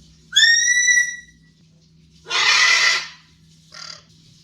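Parrots contact calling loudly. First a whistled call rises and then holds; about two seconds in comes a harsh macaw screech, and a short softer call follows near the end.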